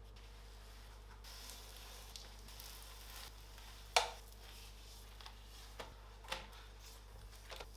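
Quiet cooking sounds: a utensil clicking and tapping against a pan a few times, the sharpest knock about four seconds in, over a faint sizzle.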